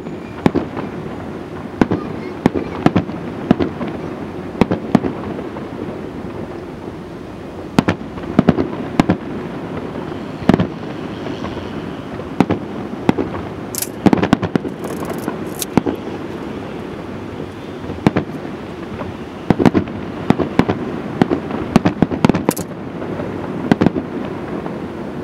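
Aerial firework shells launching and bursting in a long, irregular string of sharp bangs, roughly one or two a second and sometimes in quick clusters. Bright, high crackling bursts come about halfway through and again near the end.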